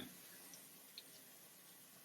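Faint water dripping in a shower: a few small drips over a low, steady hiss.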